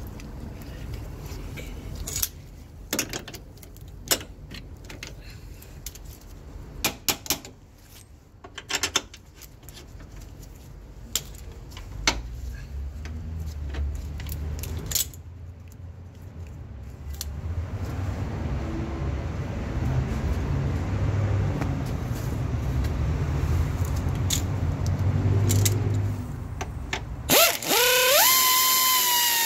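Scattered metal clicks and clinks of tools and bolt hardware as a rear shock absorber's lower bolt is fitted on a 2008 Honda Civic, with a low rumble through the middle part. Near the end a power wrench on a socket extension spins up with a rising whine and then runs steadily, driving the lower shock-absorber bolt.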